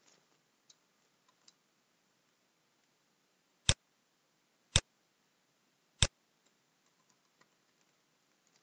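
Three sharp computer mouse clicks, roughly a second apart, opening and choosing from a file dialog's drop-down list, with a few faint ticks in between.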